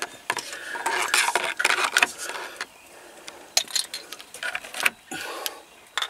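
A run of sharp plastic clicks, taps and rubbing from hands working at a 2003 Toyota Tacoma's dash trim, as the heater control knobs are pulled off their metal shafts.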